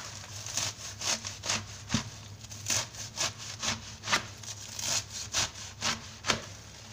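Kitchen knife chopping a handful of wild greens held over a large tray, a short crisp cut about twice a second.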